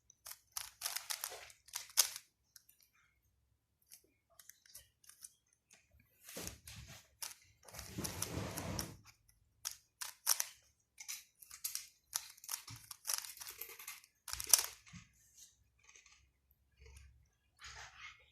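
Plastic 3x3 Rubik's cube being turned by hand: bursts of quick clicking and clacking as the layers are twisted, with short pauses between the move sequences.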